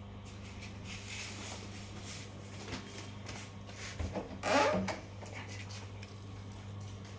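Rustling and rubbing handling noise from a phone moved about against an aquarium, over a steady low electrical hum, with one louder scuff about four and a half seconds in.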